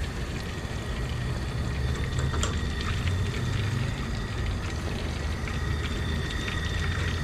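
Catfish nuggets sizzling in a pot of hot frying oil as they are lifted out with a wire skimmer basket, a steady hiss over a low rush, with a few faint clicks of the skimmer.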